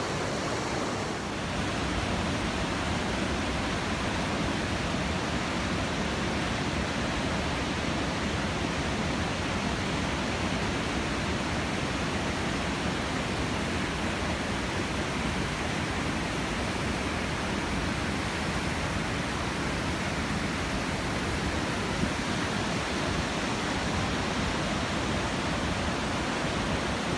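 Steady rushing of a fast-flowing mountain creek, an even roar of water with no let-up.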